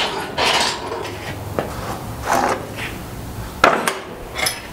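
Hand-pumped hydraulic shop crane lifting one end of a steel stand holding two air compressors: a few irregular metallic clanks and knocks as the crane is pumped and the load shifts, the sharpest about three and a half seconds in.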